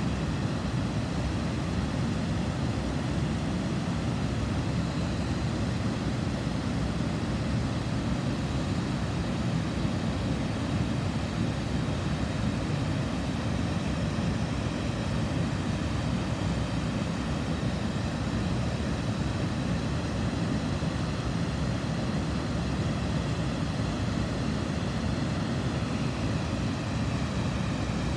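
River water pouring over a weir: a steady, deep rushing noise that does not change.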